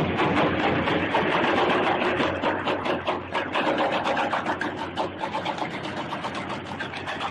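A machine running with a rapid, irregular clatter, a little louder in the first few seconds.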